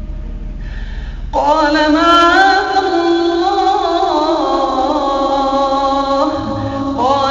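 Quranic recitation: a reciter's voice, starting about a second in, draws out one long melodic note with wavering ornamental turns. A new phrase begins near the end.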